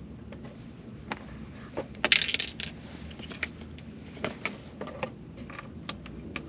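Hard plastic clicks, knocks and rattles as the rear center-console trim panel and HVAC control module are handled and fitted, with a louder burst of rattling clicks about two seconds in.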